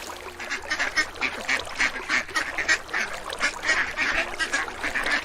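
Rapid series of short animal calls, several a second, over a faint steady low hum.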